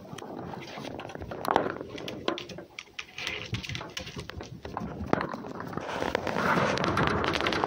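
A red fox and a domestic cat scuffling in rough play on a wooden box top: claws scrabbling and tapping on the board, with many quick ticks and rustles. The scuffling grows louder and denser near the end.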